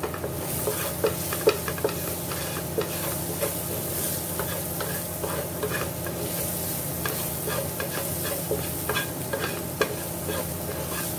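Chopped onion sizzling in ghee in a frying pan while a wooden spatula stirs it: a steady sizzle broken by frequent short scrapes and taps of the spatula on the pan.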